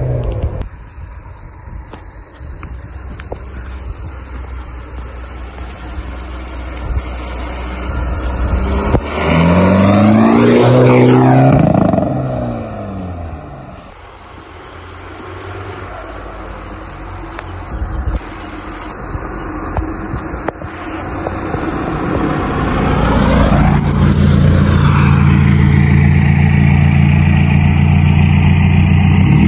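Crickets chirping steadily while a straight-piped VW Golf 4 1.9 TDI four-cylinder turbodiesel drives on the lane. Its exhaust note rises and falls loudly about ten seconds in, climbs again a little after twenty seconds as the car comes up close, then settles into a steady, loud diesel idle near the end.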